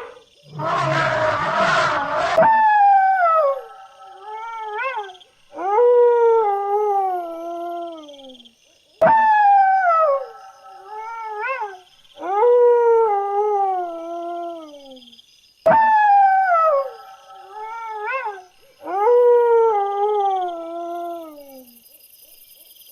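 Dogs howling: a run of long howls that slide down in pitch, often ending with a brief upward flick, sometimes with two voices overlapping. The howls are preceded by a short harsh noisy burst.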